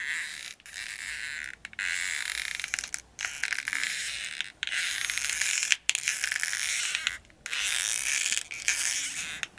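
Foley rope creak for a swing hung from a tree: a rope strained and rubbed in about seven rough, hissy strokes, each a second or so long with short breaks between, like a swing going back and forth.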